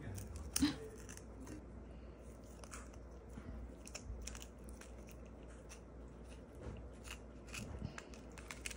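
A Singapura cat biting and chewing a capelin held in a hand: an irregular run of small, sharp crunches, the loudest about half a second in.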